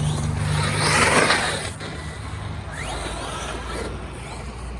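ARRMA Kraton 8S electric RC monster truck driving through snow, with a loud burst of tyre and snow noise about a second in that dies down, and a smaller burst near the end.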